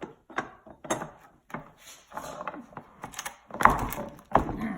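Hard knocks and scraping of blocks and tools against a carbon fiber rib mold as a stuck, untapered plug is worked at to free it. The two loudest knocks come near the end.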